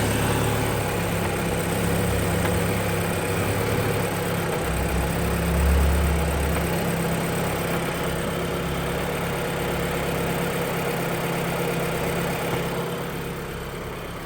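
Audi S3 8P's 2.0 TFSI turbo four-cylinder idling on a cold start, the start the owner films for its knocking noise. A deeper drone swells briefly about five seconds in.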